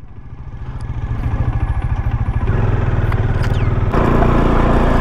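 Motorcycle engine running and pulling away, growing louder over the first two seconds. Its note changes about two and a half seconds in and again at four seconds.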